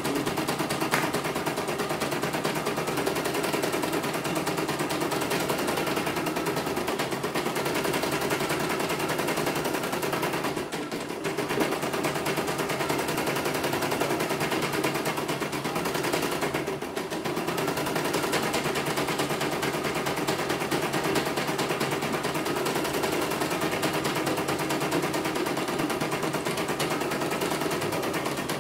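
CNY portable embroidery machine stitching a design: a rapid, steady clatter of needle strokes while the arm moves the hoop, dipping briefly twice.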